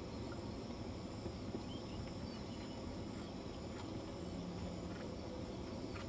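Steady outdoor background noise: a low rumble with faint, steady high tones and a few faint ticks, and no distinct hoofbeats.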